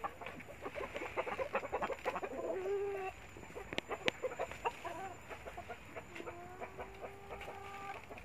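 Domestic chickens clucking in quick runs of short notes, with a couple of longer, drawn-out calls, the longest about two seconds near the end.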